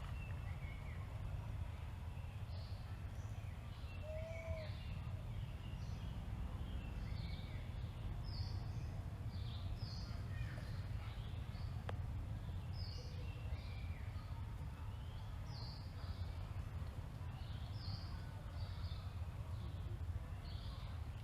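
Birds chirping repeatedly in short high notes, about one every second, over a steady low rumble. A single brief, lower call comes about four seconds in.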